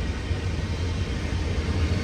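Long CN freight train rolling past: a steady low rumble of its cars' wheels on the rails.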